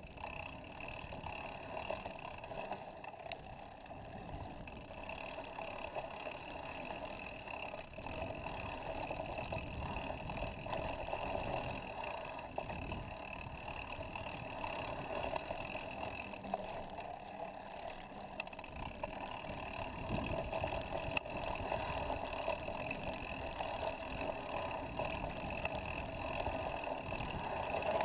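Mountain bike rolling along a dirt singletrack, picked up by a handlebar-mounted camera: a steady rush of knobby tyres on dirt and wind over the microphone, broken by frequent small jolts and rattles as the bike hits bumps.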